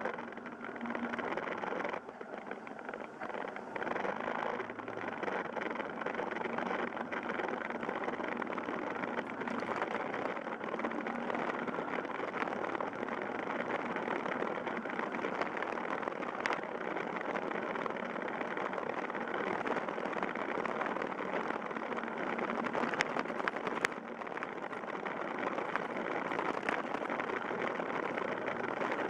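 Yamaha Fazer YS250 motorcycle's single-cylinder engine running under way, heavily mixed with steady wind and road noise on the bike-mounted microphone.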